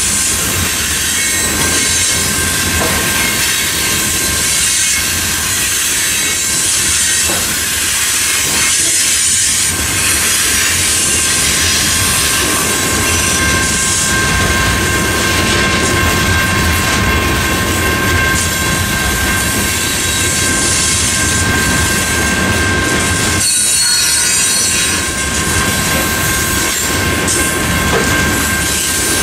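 Freight train of covered hopper cars rolling through a grade crossing, with steady wheel-on-rail rumble and clatter. Over it the crossing's General Signals electronic bells ring continuously, heard as two steady tones of different pitch.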